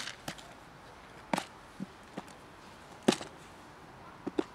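Sharp plastic clicks and knocks from a snap-lid plastic food container being handled and opened, about seven in all, the loudest about three seconds in.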